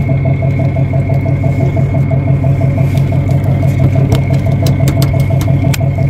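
A fishing boat's engine running steadily, a loud even drone with a thin high tone above it. Several sharp clicks come in the second half.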